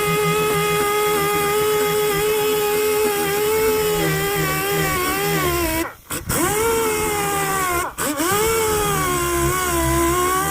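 Handheld power sander running on a car's steel fender, its motor whine sagging in pitch as it is pressed into the panel. It is switched off twice briefly, about six and eight seconds in, and spins back up each time.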